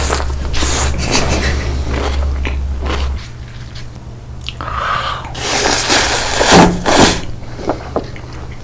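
Close-miked mukbang eating: a person biting and chewing food in irregular bursts, the loudest bites coming about six to seven seconds in.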